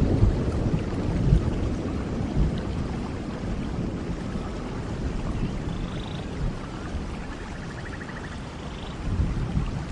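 Heavy rain falling steadily, with the low rumble of thunder dying away over the first few seconds. A few faint high chirps come through the rain near the middle.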